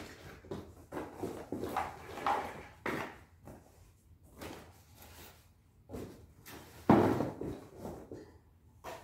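A paper shopping bag rustling as items are handled, pulled out and put back, with irregular knocks of plastic pieces and a sharper knock about seven seconds in.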